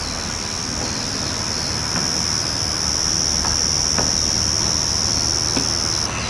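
Yachisuzu ground cricket (Pteronemobius ohmachii) singing one continuous, high-pitched trill that breaks off about six seconds in. A low rumble runs underneath.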